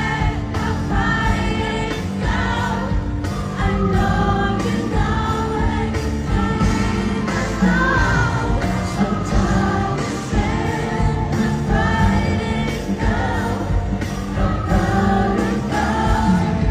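Pop music played through a PA, with a singing voice carrying the melody over a steady beat.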